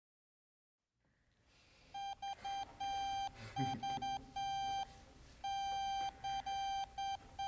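A single steady electronic beep tone keyed on and off in short and long pulses, like Morse code, starting about two seconds in after a silent opening.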